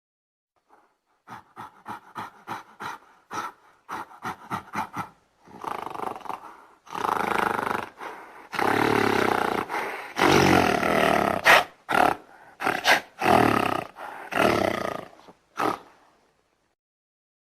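Gorilla calling: a quick run of short hoots, then a series of longer, loud roars.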